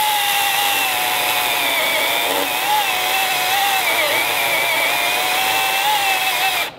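Milwaukee M18 Fuel top-handle battery chainsaw cutting through a hardwood oak log under heavy pressure. It makes a steady high electric whine that wavers and dips slightly in pitch under load without bogging down, then stops abruptly near the end.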